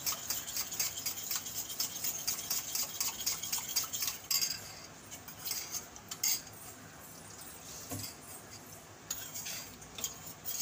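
Metal spoon stirring a thin cornflour-and-water batter in a stainless steel bowl, clinking rapidly against the bowl's side. The stirring stops for a few seconds in the middle and starts again near the end.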